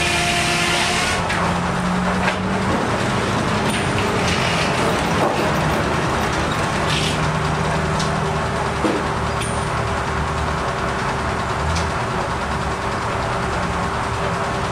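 Antique circular sawmill running: the driving engine and the large spinning saw blade make a steady mechanical din, with a few short clanks from the log carriage and headblocks. Background music stops about a second in.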